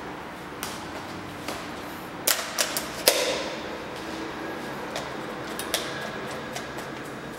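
Mechanical clicks and clacks from a DSLR camera being handled: a few scattered single clicks, a quick cluster of clacks just after two seconds, and the loudest, a sharp snap, about three seconds in, over a steady low background.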